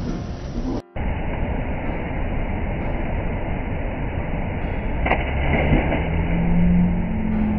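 Steady rush of river water, broken by a short dropout about a second in. About five seconds in comes a splash as a jumper hits the water, followed near the end by a low, drawn-out voice.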